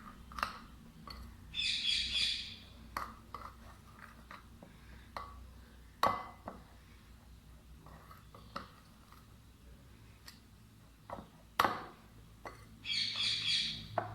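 A bird chirping in two short bursts of quick repeated high notes, about a second each, one near the start and one near the end. Between them, scattered soft clicks and squelches of batter being mixed by hand in a bowl.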